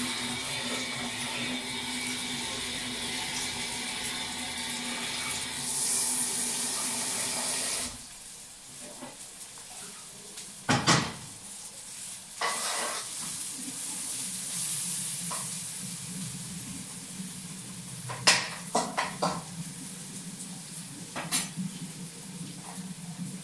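Cookware clattering at a stove: metal pans and utensils knocked and clinked in a few sharp strikes, loudest about two-thirds of the way through. Before that, a steady hum runs and cuts off abruptly about eight seconds in.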